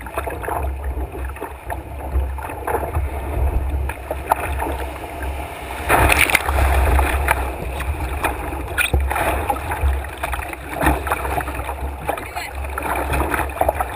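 Rushing, splashing whitewater around a canoe's bow as it runs a rapid, loudest about six seconds in when the bow drives into the standing waves, with a steady low rumble underneath.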